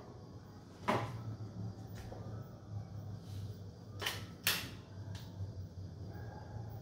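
Three sharp knocks or clacks, one about a second in and two close together around four seconds in, over a low steady hum.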